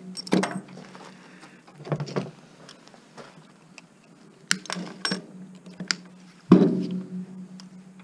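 Metal scrap parts clanking and rattling as they are handled and pulled apart, with a handful of sharp knocks; the loudest, about six and a half seconds in, rings briefly.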